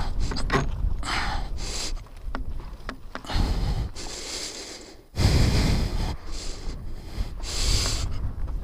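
A person breathing hard in heavy, hissing breaths, straining with exertion while hauling a heavy dirt bike out of sand, with low rumbling noise in between.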